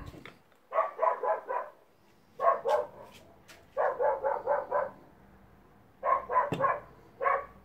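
A dog barking in the background in about five quick runs of several barks each, with short pauses between the runs.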